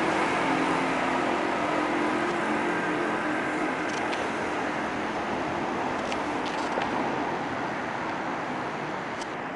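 Steady street traffic noise, a continuous hum of passing cars that fades slowly, with a few faint clicks.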